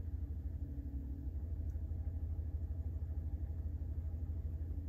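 A 2021 RAM 1500's Hemi V8 idling steadily, heard from inside the cab as a low, even hum.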